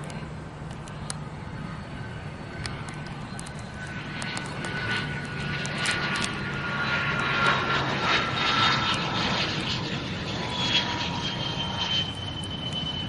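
Airplane passing by, its engine sound swelling to a peak and then easing, with a whine that slowly falls in pitch as it goes past.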